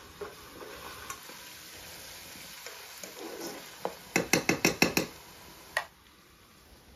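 Metal ladle stirring bean stew in a frying pan that is sizzling on a small stove, followed by a quick run of about seven sharp knocks of the ladle against the pan and one more knock just before the sizzling stops as the pan comes off the heat.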